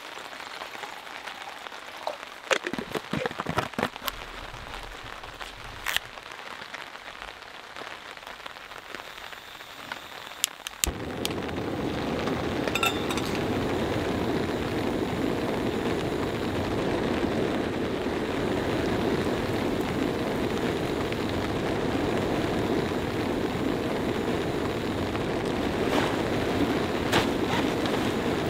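Light rain pattering with scattered taps and clicks, then about eleven seconds in a canister gas stove's burner lights and runs with a loud, steady hiss under a pot of water.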